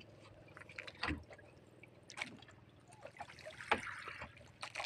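Small boat on the water: light splashes and knocks against the hull and gear, a few short sharp ones about a second, two seconds and near four seconds in, over a faint steady hum.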